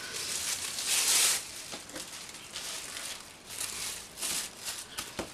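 Thin plastic shopping bags rustling and crinkling as they are handled, in uneven bursts, the loudest about a second in.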